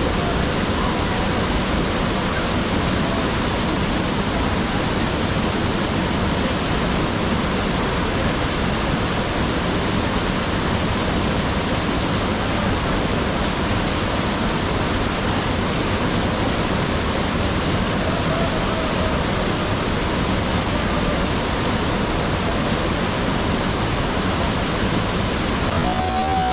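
Steady, loud rush of a large waterfall's falling water, even and unbroken throughout.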